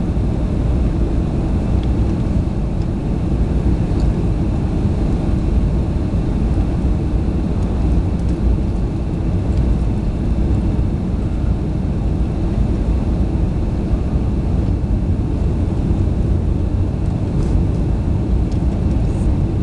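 Airliner during takeoff: a steady, deep engine and air rumble that holds an even level with no rise or fall in pitch.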